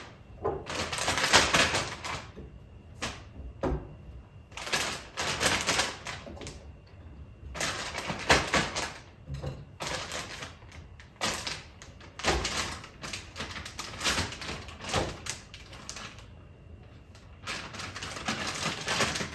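Food-storage wrapping crinkling and rustling in repeated bursts, with short pauses between them, as groceries are handled and packed by hand.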